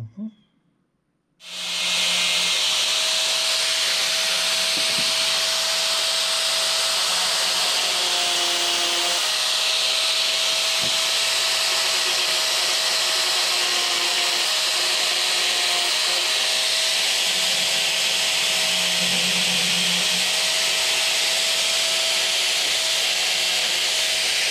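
A couple of brief knocks, then an angle grinder starts about a second and a half in and runs steadily as it grinds down and shapes the wooden handle scales of a knife, with a steady whine over a hiss of abrasion.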